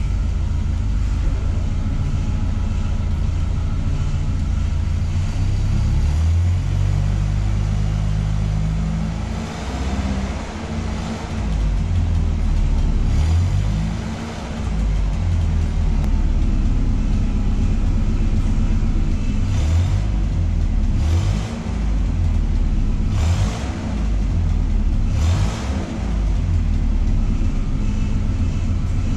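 Allis-Chalmers C50 forklift's propane engine running and being revved, its pitch rising and falling as the forklift is worked, with several short hissing bursts in the second half. The owner finds the transmission acting up in forward gear once it warms up.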